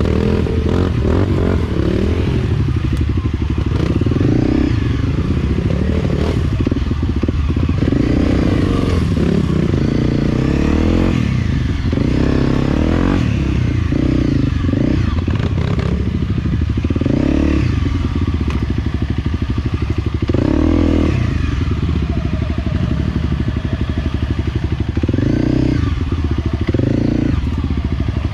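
Enduro motorcycle engine running at low trail speed, rising and falling with repeated short bursts of throttle, with some clatter from the bike on rough ground.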